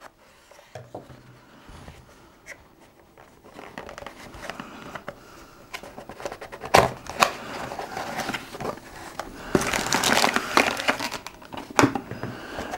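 Packaging rustling and crinkling as a small cardboard box is opened and handled, with a few sharp taps and clicks. It starts faint and grows denser, busiest about ten seconds in.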